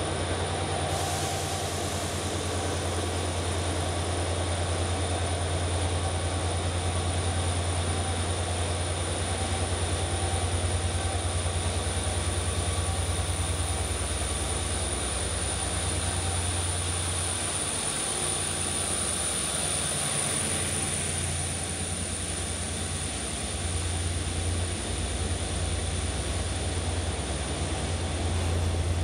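Renfe locomotive hauling Talgo coaches slowly into an underground station: a steady low engine drone with a high whine over it, growing a little louder near the end as the coaches come alongside.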